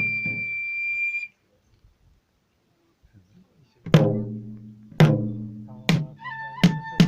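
Traditional Japanese shrine festival music of flute and drum. A held flute note over the drum stops about a second in; after a pause of a couple of seconds, single drum strikes come back and draw closer together, and the flute comes back in near the end.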